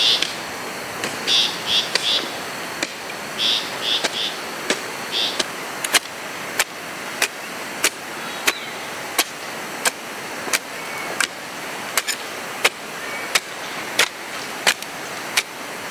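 Regular sharp knocks, about three every two seconds, starting about five seconds in and keeping an even beat, like a tool striking over and over. Before them come short high chirps in quick groups of three or four.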